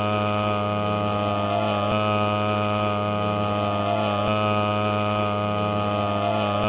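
A steady, unbroken drone made of many stacked tones, with a slight swell that comes back about every two and a third seconds, like a short stretch of audio looped over and over.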